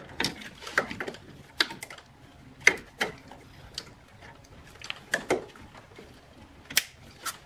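Plastic clicks and knocks from a wiring harness being handled and pressed into its plastic retaining clip in a car's engine bay: a dozen or so sharp, irregularly spaced clicks.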